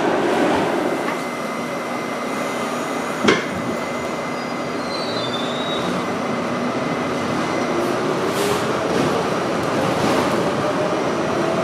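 Inside a running R68 New York subway car: steady rumble of wheels on rail, a single sharp clank about three seconds in, a brief high wheel squeal, and a whine rising in pitch near the end.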